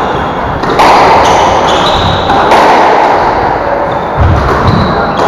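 Squash rally: the ball is struck and smacks off the court walls three times, about every second and a half to two seconds, each hit echoing in the enclosed court. Rubber-soled shoes squeak on the wooden floor, with footfall thuds near the end.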